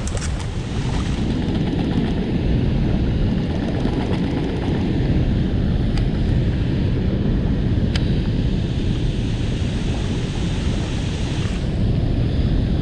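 Heavy, steady rush of water pouring through a dam's spillway gates and churning past the rocks below, strongest at the low end. Two faint small clicks come about six and eight seconds in.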